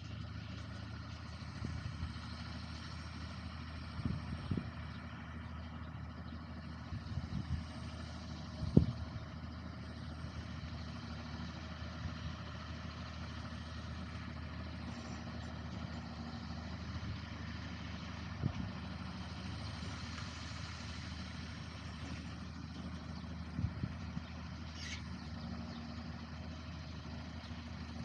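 Farm machine's engine running steadily, with a few short clunks; the loudest clunk comes about nine seconds in.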